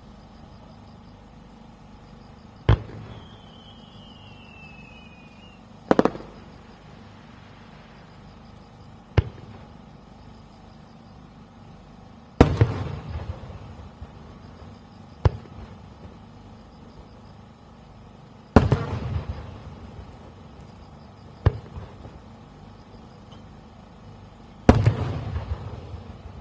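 Aerial firework shells bursting one at a time, about every three seconds, eight bangs in all. Every other burst or so is followed by a longer rumbling echo, and a brief falling whistle sounds a few seconds in.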